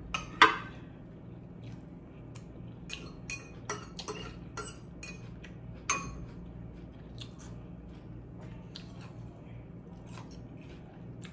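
Metal fork clinking and scraping against a glass bowl while scooping fried cabbage. A sharp clink comes about half a second in and another about six seconds in, with softer taps between.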